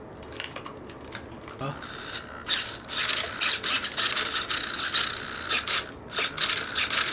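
Dry, uneven rasping and rubbing from the nitro RC car's mechanism being worked by hand, a sign that it needs oiling after years of sitting unused.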